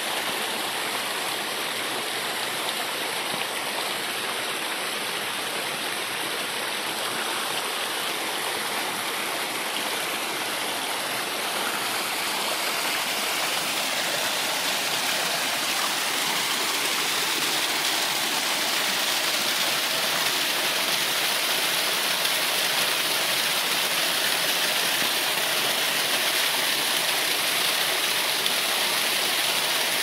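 Small waterfall spilling in thin cascades over mossy rock: a steady rush of falling and splashing water that grows somewhat louder about halfway through.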